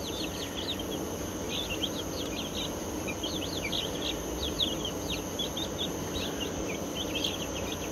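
A brood of young chicks peeping continually, many short high cheeps overlapping, over a steady low hum.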